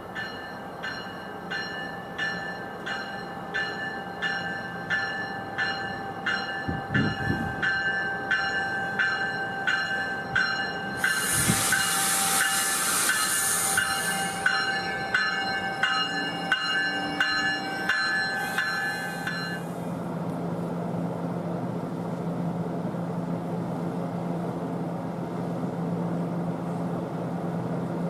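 MARC bilevel commuter train's bell ringing steadily, about two strokes a second, as the train rolls in and slows. A loud hiss of air comes about 11 seconds in. The bell stops about 19 seconds in, leaving the stopped train's steady low hum.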